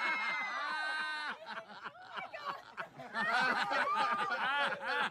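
A high-pitched scream trailing off, then a person laughing in quick repeated 'ha' pulses from about three seconds in.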